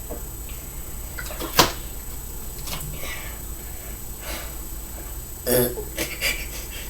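A short burp from someone chugging soda, about five and a half seconds in, followed by two smaller sounds. A sharp click about a second and a half in is the loudest moment.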